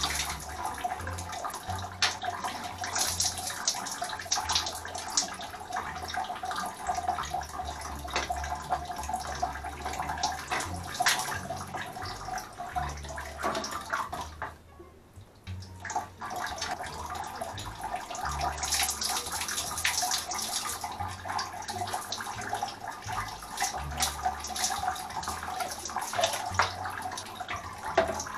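Water splashing and pouring in a plastic bucket as a fishing rod is rinsed in fresh water with a dipper, with a brief lull about halfway through.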